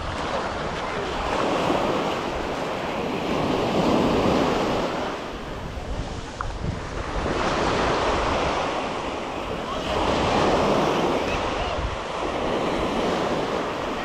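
Ocean surf breaking and washing up the sand, its rush swelling and fading every few seconds, with wind buffeting the microphone.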